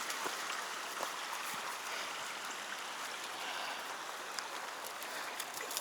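Flowing water rushing steadily, with a few faint clicks.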